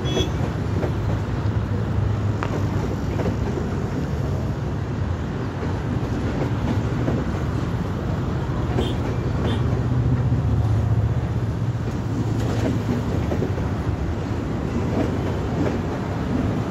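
Paschim Superfast Express passenger coaches rolling past: a steady low rumble of wheels on rails, with a few sharp clicks.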